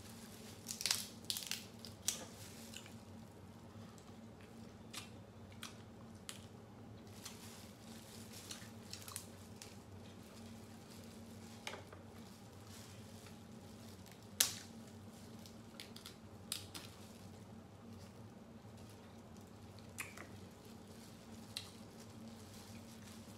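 Crab legs and shells being cracked and pulled apart by hand in plastic gloves: a cluster of sharp cracks at the start, then single cracks scattered through, one louder crack a little past the middle, with soft squishing of the meat in between.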